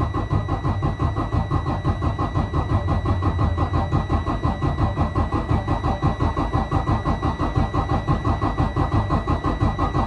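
Detroit DD15 diesel engine in a Freightliner Cascadia cranked over on the starter without firing for a relative compression test, an even chugging of about six compression pulses a second. The cranking is slow, on batteries the mechanic judges weak.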